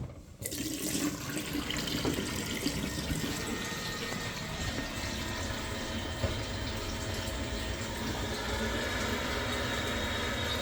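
Water running steadily with a rushing sound, starting abruptly about half a second in.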